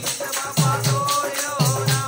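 Live devotional bhajan music: a dholak beating a steady rhythm of deep strokes, under harmonium and a singing voice, with jingling hand percussion.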